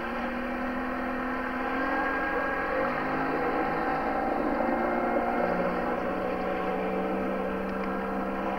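Motorboat engine running hard as the boat accelerates away, its pitch climbing about two to three seconds in and again a little past the middle.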